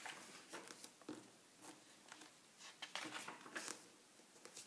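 Pages of a large bound book being turned by hand: faint paper rustles and swishes, one cluster in the first second and a louder one about three seconds in.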